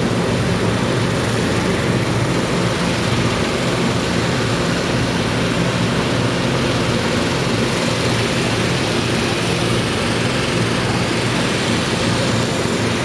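Inflator fans running steadily to cold-inflate hot-air balloon envelopes lying on the ground: a constant engine drone with the rush of air driven by the fan blades.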